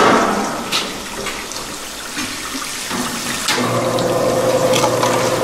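Water spraying and running over a spiral gold wheel concentrator, with a sharp clunk at the start. About three and a half seconds in, a steady machine hum starts up.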